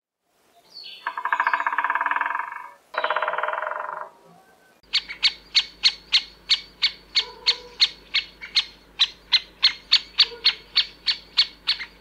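Great spotted woodpecker calling: two harsh, drawn-out calls, then from about five seconds in a long, even series of short, sharp 'kik' notes at about four a second.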